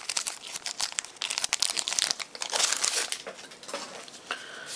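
A trading-card pack being handled: the wrapper crinkling and the cards rustling in quick overlapping bursts that thin out over the last second or so.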